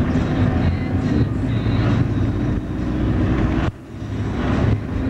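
Car cabin noise while driving: a steady low engine and road rumble, with a brief sharp dip in level about three-quarters of the way through.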